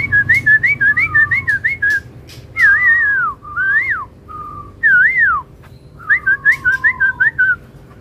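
Caged songbird singing loud whistled phrases: a quick run of short rising notes, then longer swooping whistles, then another quick run of notes near the end.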